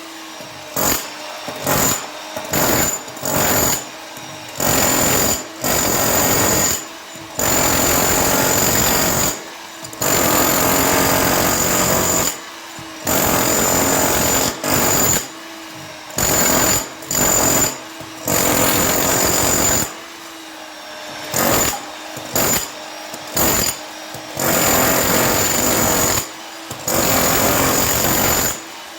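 Hilti TE 70 electric combihammer hammering into concrete in short bursts. It is switched on and off over and over, with about fifteen runs of half a second to two seconds each.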